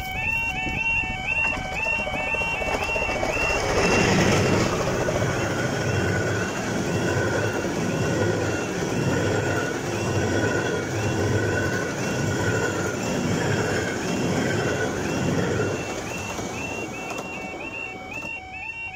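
Level crossing alarm warbling in a steady, evenly repeating pattern. About three seconds in it is drowned by the loud pass of the 15-inch gauge steam locomotive Green Goddess and its coaches: a rumble with a rhythmic beat of wheels and exhaust. The train noise fades near the end, and the alarm is heard plainly again.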